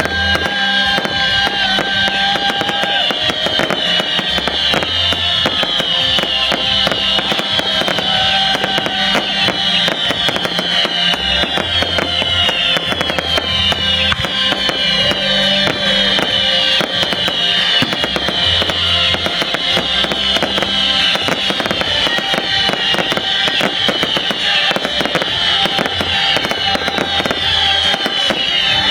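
Fireworks crackling continuously in dense, rapid pops, with repeated short falling high-pitched tones, over background music with a pulsing bass.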